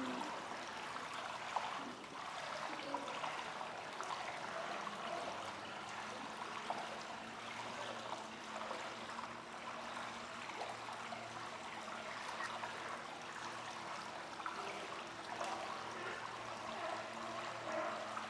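Steady sound of running, trickling water in a polar bear enclosure's pool.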